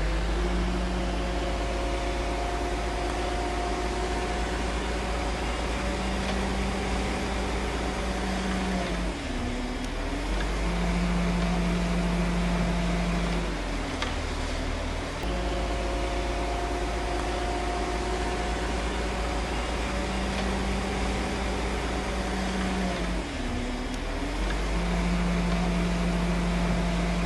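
Diesel engine of heavy earthmoving machinery running steadily. Twice, about fourteen seconds apart, its pitch sags and then recovers.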